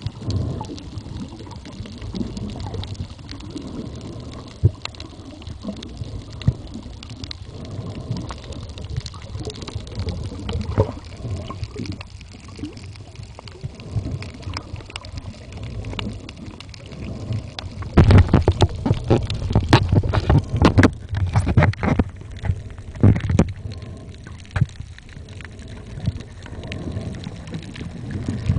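Underwater noise picked up by a snorkeler's camera below the surface: a steady low rumble of moving water with scattered crackling clicks. About two-thirds of the way in it turns louder for several seconds, with rushing water and a cluster of knocks.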